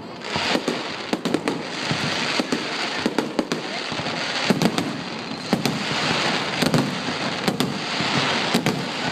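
Aerial fireworks going off: a rapid, irregular run of sharp bangs over continuous crackling.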